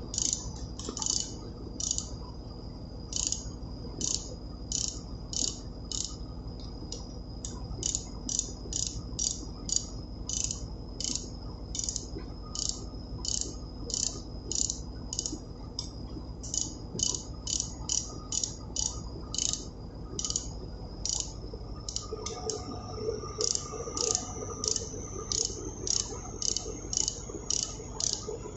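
Ratchet spanner clicking in short quick strokes, about two a second, as the bolts of a main engine air starting valve are tightened evenly to press its piston down.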